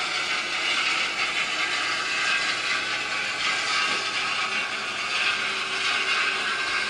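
New Holland TR99 combine running while shelling corn with a 12-row head: a steady, even mechanical clatter and whir of the machine under load.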